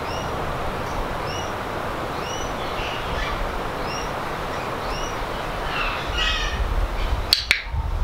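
Other birds in the aviary chirping, a short arched chirp about once a second over a steady hiss, with a harsher call about six seconds in. Near the end, one sharp click: a training clicker marking the moment the eclectus parrot touches the target stick.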